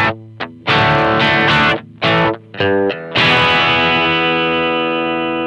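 Electric guitar played through a Mosky BC108 silicon-transistor Fuzz Face clone running on 12 volts: a few short, choppy distorted chords, then one chord held and left to fade slowly. This is the pedal before its circuit flaw is corrected, a flaw the owner puts down to bias; he says the pedal "just sounds broken".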